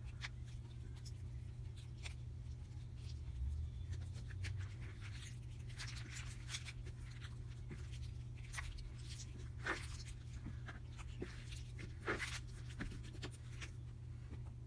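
Slime being stretched and folded by hand, giving scattered faint sticky crackles and clicks, busiest in the middle, over a steady low hum.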